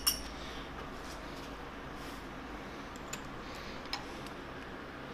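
A few light metallic clicks from small mounting hardware being handled at a milling-machine table: one sharp click right at the start, then two fainter ticks about three and four seconds in, over a steady low hum.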